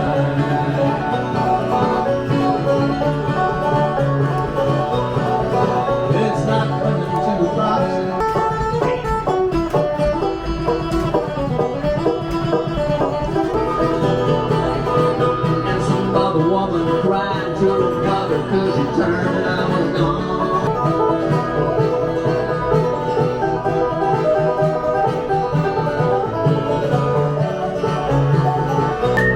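Upbeat bluegrass-style music with banjo and guitar picking, playing steadily throughout.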